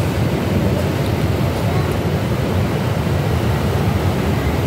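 Steady low rumble of road traffic passing below.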